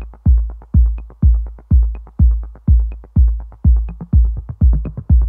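Background music with a steady kick-drum beat about twice a second and light ticks between the beats.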